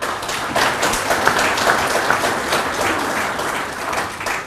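Audience applauding: a dense patter of many hands clapping together, which starts abruptly after a few scattered claps and stops near the end.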